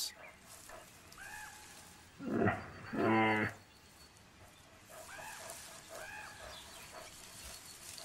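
A male brown bear gives two short calls about two and a half and three seconds in, the second a steady pitched call lasting about half a second. Faint bird chirps sound here and there.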